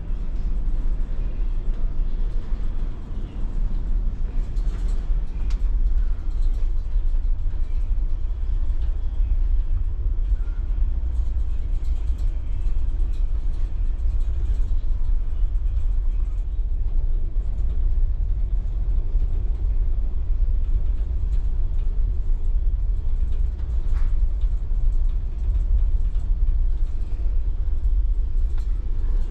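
Steady low rumble of a car ferry's engines and hull vibration heard from inside the ship while under way, with a few faint clicks.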